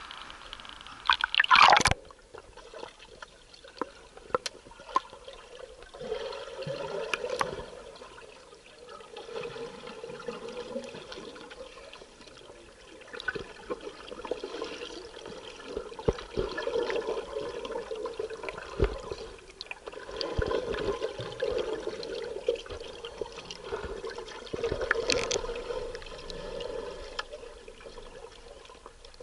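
Water splashing loudly about a second and a half in as the camera goes under, then water sounds heard from underwater, swelling and fading every few seconds with scattered small clicks.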